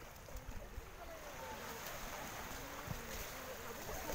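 Steady wash of sea waves and wind, with faint voices in the background.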